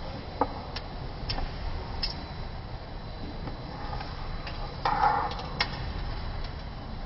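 Front-loading washing machine running, a steady low hum as the drum turns the clothes, with scattered light clicks and taps and one brief louder rattle about five seconds in.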